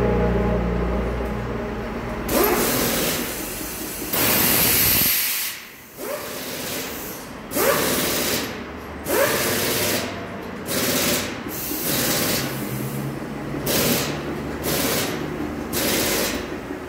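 Pneumatic tyre changer at work: a series of about ten sharp compressed-air hisses, some short and some a second or two long, with the low hum of its motor in between.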